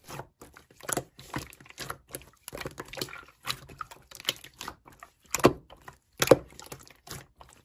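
Slime being pressed and poked by hand, making an irregular run of small sticky clicks and pops. Two louder pops come near the end.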